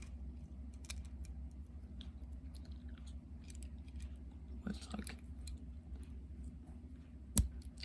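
Faint clicks and rattles of plastic Lego pieces being handled, with one sharp click near the end, over a steady low hum.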